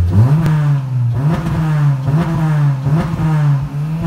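K24A-swapped Acura RSX Type-S four-cylinder engine revving through a K-Tuned 4-2-1 race header with cat delete, a Vibrant bottle-style resonator and a K-Tuned oval muffler, heard from inside the cabin. The revs are held high and waver with small repeated dips.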